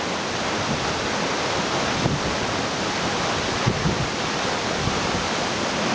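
Waterfall rushing close by: a loud, steady wash of falling water.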